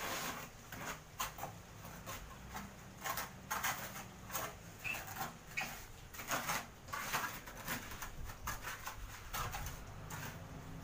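Steel trowel scraping and smoothing wet cement on a kitchen-cabinet top, in short uneven strokes about one or two a second.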